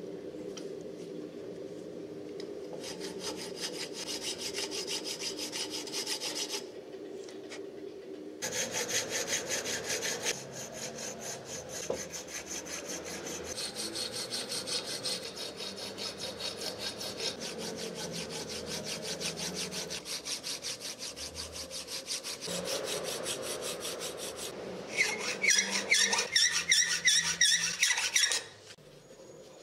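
Hand files rasping back and forth over a ribbed metal shovel knob clamped in a bench vise, in fast, even strokes. The strokes come in several separate runs, loudest near the end, and stop suddenly.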